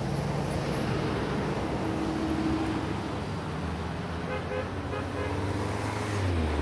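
Road traffic passing close by, with a steady low rumble and a louder vehicle rumbling past near the end. A brief horn-like tone sounds about two seconds in.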